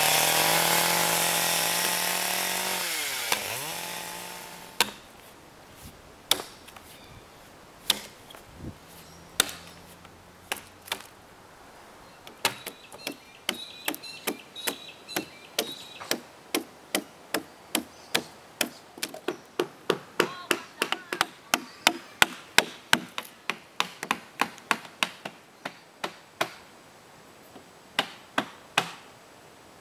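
A chainsaw runs, then dies away with its pitch falling over the first few seconds. It is followed by hand-tool chopping into the pine log: single strikes at first, then a steady run of about two blows a second, which pauses briefly and starts again near the end.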